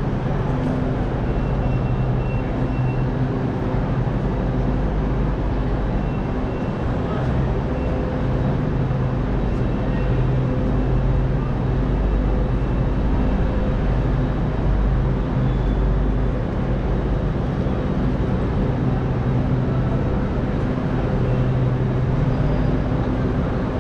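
Railway station ambience: a steady low mechanical hum with a few held low tones over a constant wash of noise.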